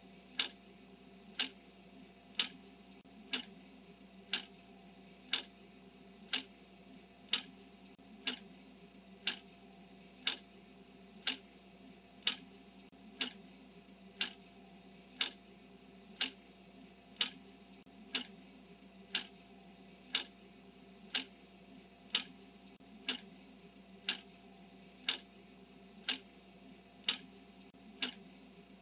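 A steady clock tick, one sharp tick a second, marking each second of a countdown timer, over a faint steady hum.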